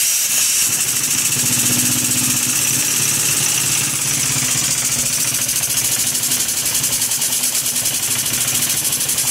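Small brass oscillating-cylinder model engine running on compressed air: a fast, even run of exhaust puffs over a loud, steady air hiss.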